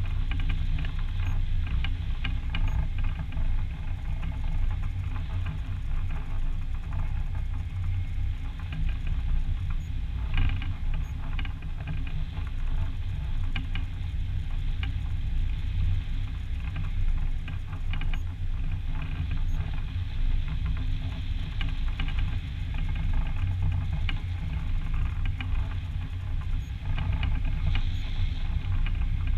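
Airflow buffeting the microphone of a camera mounted on a hang glider in flight: a steady low rumble with scattered faint ticks.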